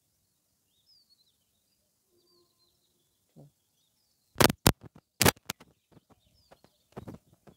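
Faint birds chirping in the background, then a quick cluster of loud, sharp clicks and knocks about halfway through, followed by a few softer clicks.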